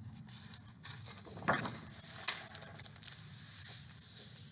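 Pages of a picture book being turned and handled, with several bursts of paper rustling.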